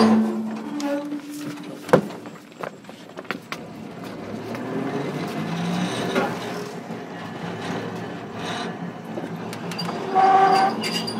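Hiroden 700 series tram running, heard from on board: a wheel squeal fading in the first second, a sharp knock about two seconds in followed by a few lighter clicks, then the rumble of wheels and motors with a low rising whine, and another brief squeal about ten seconds in.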